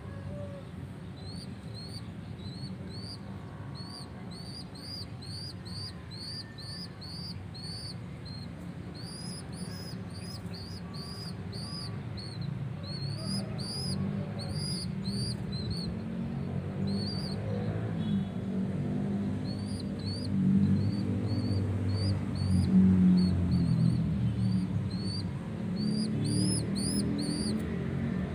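A young pigeon squab squeaking to beg from its parent: short high rising squeaks, about two or three a second, in long runs. A lower sound swells in from about halfway and becomes the loudest part.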